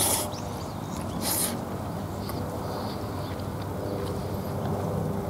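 Mouth noises of a man eating a bento with chopsticks: two short hissing slurps about a second apart near the start, then chewing, over a steady low outdoor hum.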